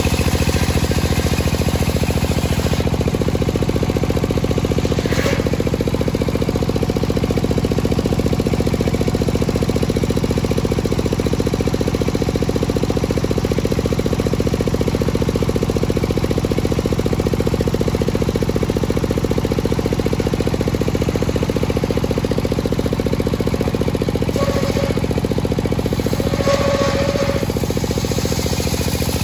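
Engine-driven homemade circular sawmill running steadily, its large blade ripping lengthwise through a teak log, over a fast, even engine beat.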